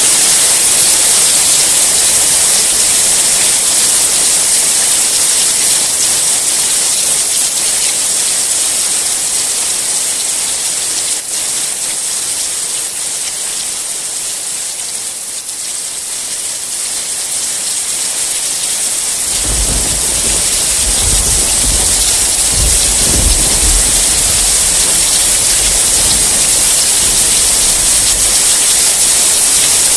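Steady heavy rain hiss, easing slightly midway. About twenty seconds in, a long low rumble of thunder joins it and lasts roughly nine seconds.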